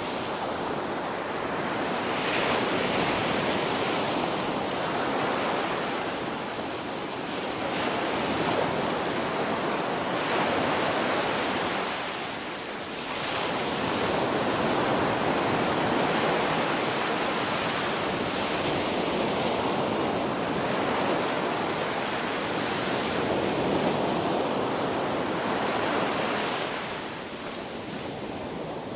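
Ocean waves breaking and washing on a beach in a continuous surf, swelling and ebbing every few seconds, with brief lulls about halfway through and near the end.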